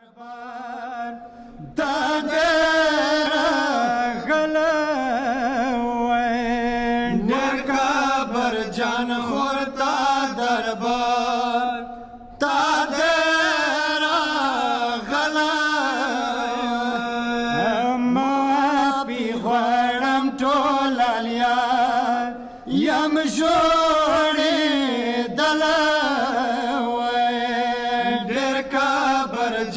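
Men's voices chanting a Pashto noha, a Muharram lament, into a microphone in long melodic phrases, with short breaks about 12 and 22 seconds in.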